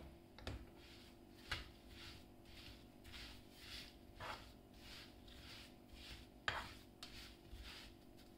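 Plastic slotted spatula stirring sugar-coated strawberry pieces in a nonstick pan: faint soft scraping strokes about twice a second, with a few sharper clicks of the spatula against the pan.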